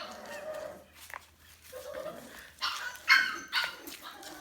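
Dogs barking: three short, sharp barks in quick succession in the second half, after a quieter stretch.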